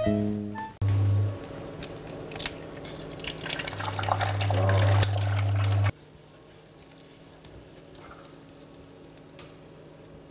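Food frying in a pan, with a crackling sizzle full of sharp pops that cuts off suddenly about six seconds in. After that only faint clicks are heard, like chopsticks against the pan and plate.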